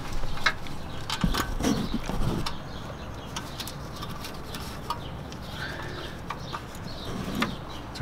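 Scattered sharp clicks and knocks of hand tools against metal during work on a truck's starter motor, most of them in the first couple of seconds.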